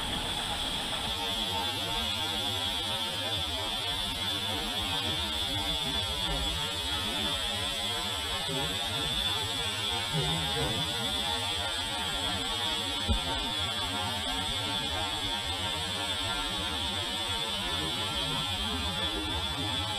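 Compressed-air gravity-feed paint spray gun spraying paint, giving a steady hiss with a high whine. There is one short click about two-thirds of the way through.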